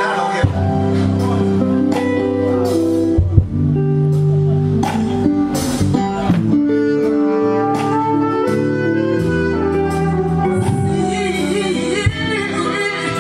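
Loud instrumental music played through a stage PA system during a sound check.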